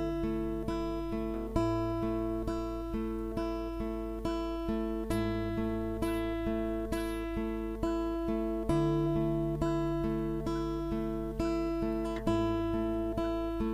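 Acoustic guitars strummed in a steady rhythm over a bass guitar, struck about twice a second, with the chord changing about every three and a half seconds: an instrumental passage with no singing.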